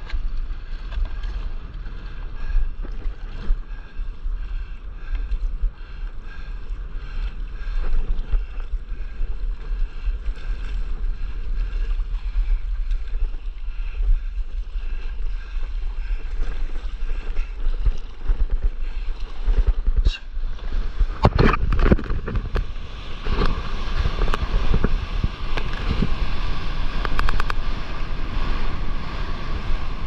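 Wind buffeting a board-mounted action camera's microphone while sea water laps and sloshes against a stand-up paddleboard. A little after two-thirds of the way in come several sharp, loud splashes, followed by a louder steady rush of breaking surf as the board runs through the whitewater.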